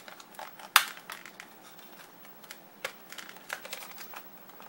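Sealed lock packaging being handled and worked open by hand: a sharp click under a second in, then scattered lighter clicks and taps with faint crinkling.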